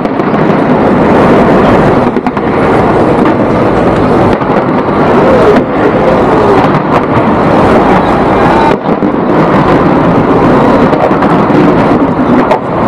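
Large fireworks display going off in a dense, continuous barrage: a steady loud rumble with no single bang standing out.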